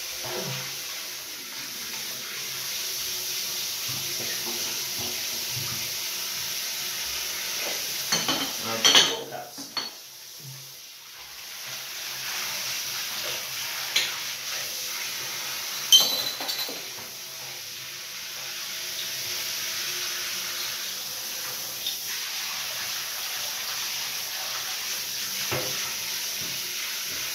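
Water spraying steadily from a handheld shower head into glass beer bottles and the bath, easing off briefly about ten seconds in. Several sharp clinks of the glass bottles knock against each other or the tub, the loudest about sixteen seconds in.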